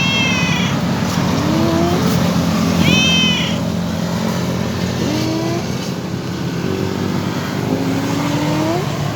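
A cat meowing twice, two short high-pitched meows about three seconds apart, over steady traffic noise.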